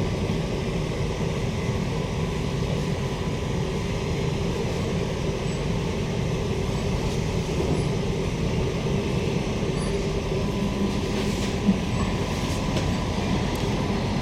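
Steady running noise inside a Queensland Rail SMU 260 series trailer car in motion: continuous rumble of wheels on track with a faint steady hum. One brief knock sounds near the end.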